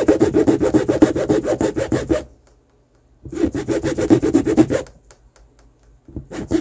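Flat metal file rasping quickly back and forth across the plastic top of a Lego minifigure's head, taking the lip off so the head is flat. Fast scraping strokes, about ten a second, in a bout that stops about two seconds in, a second from about three to five seconds, and a third starting just before the end.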